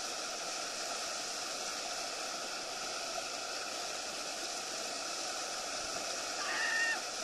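Whitewater rushing steadily as a river weir's stopper churns, heard close at water level. Near the end a person gives a brief high-pitched call over it.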